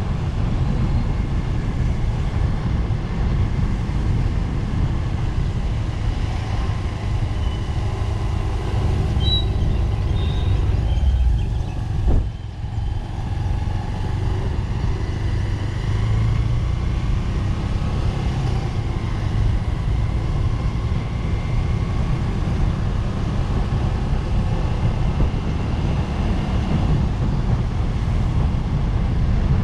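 Steady road and traffic noise heard from a moving vehicle, mostly a deep rumble. A short knock comes about twelve seconds in, followed by a brief drop in level.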